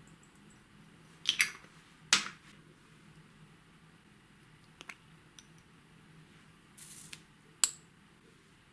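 Hands working slime: a few sharp wet clicks and short squishes as the slime is pressed and air pockets pop. The loudest come about a second in, about two seconds in and near the end, with small ticks in between.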